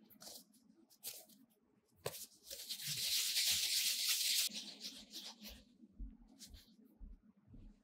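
A ball of soft bread dough being rounded by hand on a flour-dusted board: a dry rubbing hiss that grows loud for about two seconds in the middle, with short rubs and light pats before and after.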